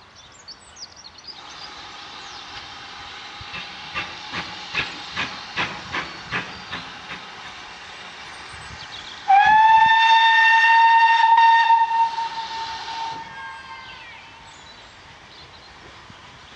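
Steam locomotive working: a steady steam hiss, then a run of exhaust chuffs about two to three a second. About nine seconds in comes a long steady whistle blast, the loudest sound, lasting about four seconds before it fades.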